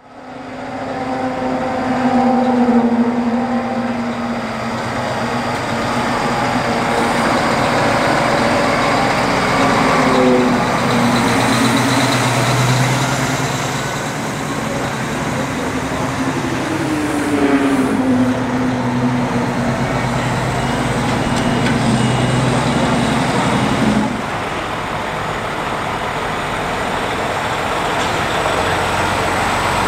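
Heavy diesel trucks hauling race car transporter trailers pull away and drive past. Their engine note rises and falls a few times as they work through the gears.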